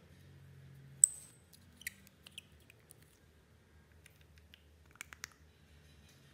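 Small glass nail polish bottle and its screw cap being handled and opened: one sharp click about a second in, then a few lighter taps and a quick run of clicks near the end.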